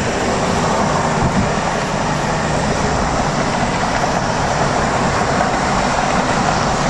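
Steady road and wind noise of a car travelling at freeway speed, heard from inside the car, with a low engine hum under it.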